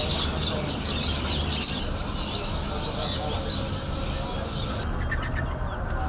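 Dense, high-pitched chattering of many caged lovebirds, cutting off suddenly about five seconds in, with a steady low hum underneath.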